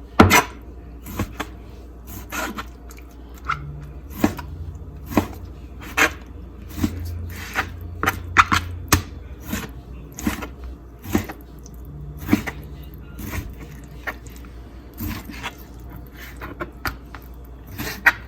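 Knife chopping through raw chicken onto a cutting board, in sharp irregular taps about one to two a second.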